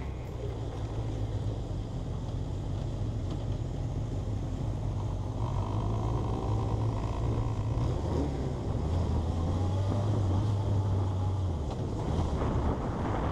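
Kawasaki Zephyr's air-cooled inline-four engine running steadily as the motorcycle rides along, heard from a camera mounted on the bike, with wind rushing past the microphone.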